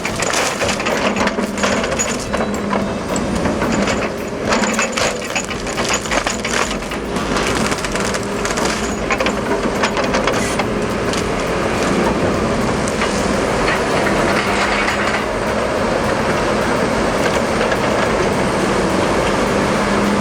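Logs cracking and splintering as they are forced apart by a 30-ton excavator's log-splitting attachment, over the steady hum of the machine's engine. The sharp cracks come thick and fast through the first half, giving way to steadier grinding and crushing noise.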